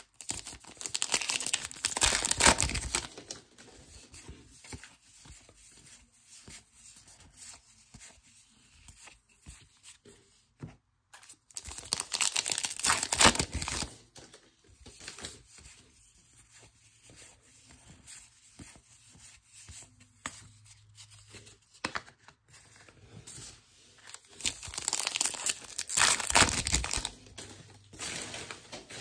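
Foil trading-card pack wrappers torn open and crinkled, in three loud spells of a few seconds each, near the start, in the middle and near the end, with faint rustling and clicks of cards being handled in between.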